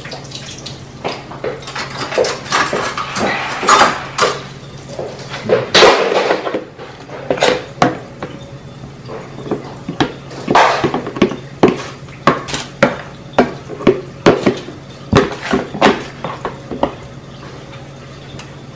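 Kitchen handling sounds: aluminium foil crinkling and a metal spoon clinking and scraping against a glass baking dish, a string of sharp clicks and clatters over a faint steady low hum.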